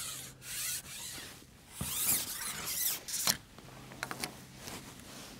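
Frozen fishing pole being handled: scraping and rubbing of the iced pole sections, with a couple of sharp cracks about two and three seconds in, then quieter rustling.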